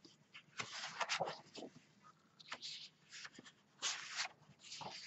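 Large sheets of scrapbook paper rustling and sliding against each other as they are lifted and turned over, in a series of short rustles with brief gaps.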